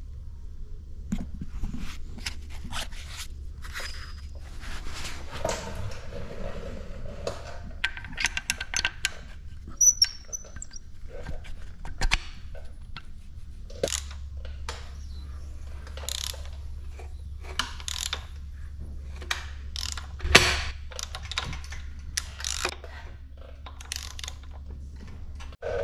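Hand tools on an engine: irregular metal clicks, clinks and short scrapes as timing locking pins are fitted, with ratchet wrench clicking. The sharpest clacks come about ten seconds in and again about twenty seconds in, over a low steady hum.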